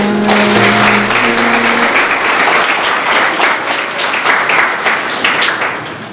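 An audience applauding, dense and sustained, dying away near the end. The last notes of a song fade out under it in the first two seconds.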